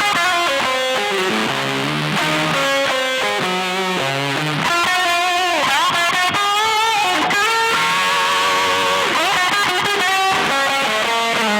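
Electric guitar played through an EarthQuaker Devices fuzz pedal, freestyle single-note lead lines with string bends and vibrato.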